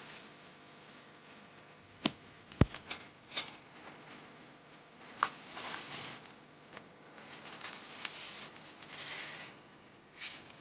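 Scattered light clicks and knocks, with one sharper thump about two and a half seconds in, then stretches of soft rustling.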